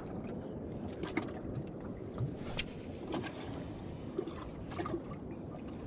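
Steady wash of water and wind aboard a small boat at sea, with a few scattered light clicks and knocks.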